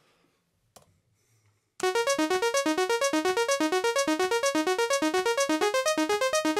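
Novation Summit synthesizer arpeggiating a held chord in up mode: a fast, even run of bright sawtooth notes, about eight a second, that climbs through the chord and repeats. It starts about two seconds in, after a near-silent moment.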